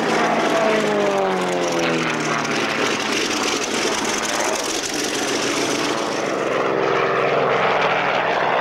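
Corsair FG-1D fighter's Pratt & Whitney R-2800 radial engine at takeoff power as the plane rolls past and lifts off. Its pitch falls as it goes by, then it drones on steadily as it climbs away.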